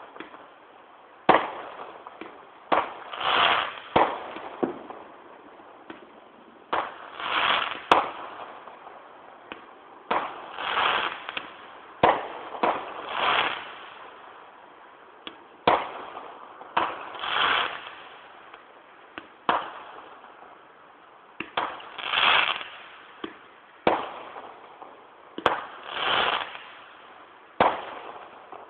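Distant fireworks display recorded on a mobile phone: sharp bangs of bursting shells alternating with swells of noise about a second long, one after another every couple of seconds.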